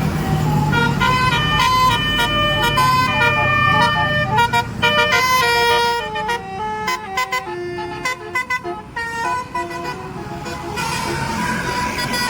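A bus's multi-tone 'basuri' telolet horn playing a quick tune of short stepped notes, with the bus engine rumbling underneath in the first few seconds.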